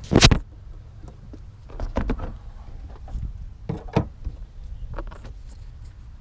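Hands working at a car's open engine bay: a sharp knock about a quarter second in, then scattered lighter knocks and clicks of metal parts being handled, over a steady low rumble.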